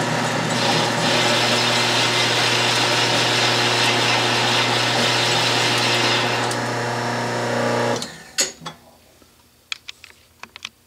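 Atlas/Craftsman 12-inch metal lathe running with a steady motor hum while the compound rest feeds the tool through a taper cut. About eight seconds in, the sound stops abruptly, leaving near silence and a few light clicks.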